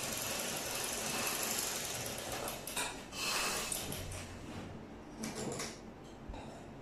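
Black domestic sewing machine driven by a small electric motor, running steadily as it sews a second line of stitching, then stopping about three to four seconds in. A few short clicks follow as the thread is cut with scissors.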